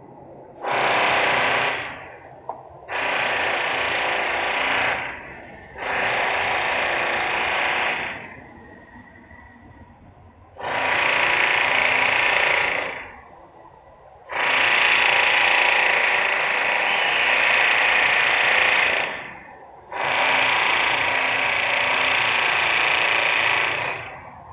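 Loud industrial power-tool noise in repeated bursts of a few seconds each, with short quieter pauses between them. Six bursts, the longest about five seconds, with another starting near the end.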